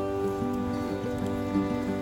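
Gentle instrumental background music, held notes changing every half second or so.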